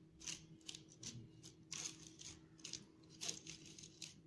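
A metal spoon scraping and pushing ground thandai powder (sugar, fennel and nuts) through a mesh sieve: a faint, irregular run of short scratchy strokes.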